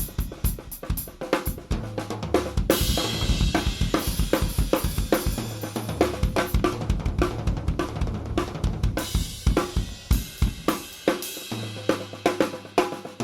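PDP Concept Maple Classic drum kit played in a groove: kick, a 14x8 bronze snare, toms and cymbals. A cymbal wash rings from about three seconds in until about nine, and low toms ring out near the start and again near the end.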